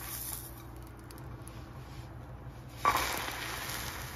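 Egg in a slice of bread frying in butter in a frying pan, a low sizzle at first; about three seconds in the sizzle jumps suddenly louder as the slice is turned over in the pan.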